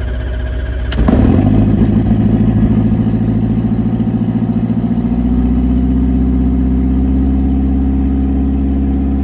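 Rotax 914 turbocharged flat-four aircraft engine cranking on the starter with the ignition held off. It fires suddenly about a second in as the ignition is brought in, then settles into a steady idle. It is running on a newly installed Ignitech CDI ignition with timing retarded for start-up and idle.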